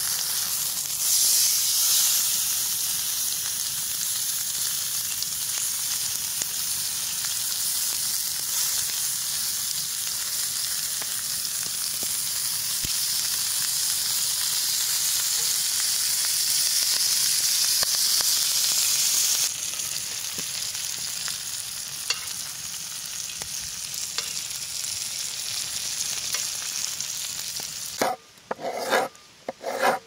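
Steak with herb butter sizzling on a hot griddle plate over coals: a steady sizzle that drops a little in level about two-thirds of the way through. Near the end it gives way to a few separate knife cuts through potatoes on a wooden cutting board.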